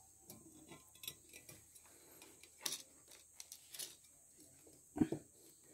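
Faint, irregular small clicks and taps of a steel motorcycle rear sprocket and rubber hose being handled on a concrete floor as the hose is pressed onto the sprocket teeth, with one louder knock about five seconds in.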